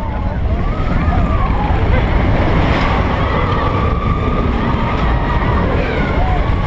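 Expedition Everest roller coaster heard from a seat on the moving train: wind rushing steadily over the microphone and the train rumbling along its track.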